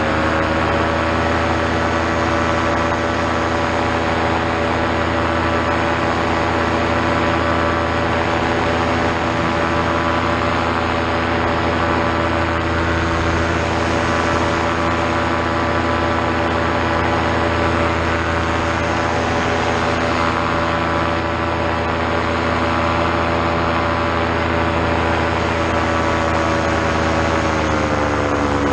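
Paramotor trike's Vittorazi Moster two-stroke engine and propeller running steadily in flight, with rushing wind noise under the engine note. The note rises slightly about a second in and drops near the end.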